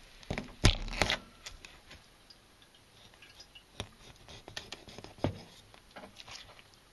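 Kitchen knife cutting into a small largemouth bass behind the gill cover to take off the head: a cluster of sharp cracks and crunches about a second in, then scattered lighter ticks and scrapes as the blade works through and taps the cutting board, with a sharper click near five seconds in.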